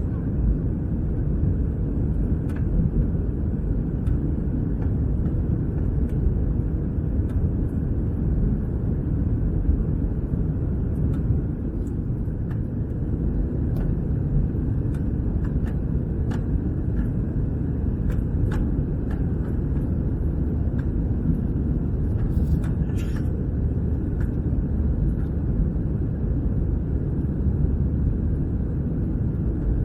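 Steady low rumble inside the cabin of an Airbus A321-200 airliner: engine and airflow noise at an even level, with faint scattered clicks and rattles from the cabin fittings.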